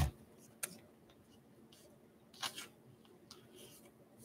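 Faint handling of a trading card and a clear plastic card sleeve: a light tick, then a couple of brief rustles as the card is slid into the sleeve.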